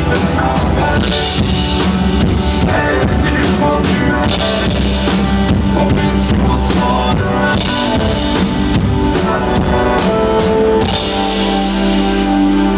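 Live rock band playing at full volume, drum kit with bass drum and snare pounding under sustained guitar and keyboard chords. About eleven seconds in, the drums stop and the chords ring on.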